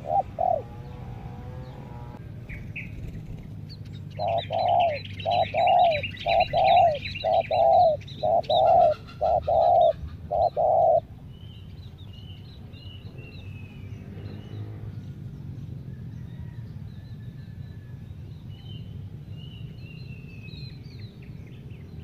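Spotted dove cooing: a run of about nine quick, evenly spaced coo notes from about four to eleven seconds in, with a couple of short coos at the start. Small birds chirp faintly and high-pitched in the background.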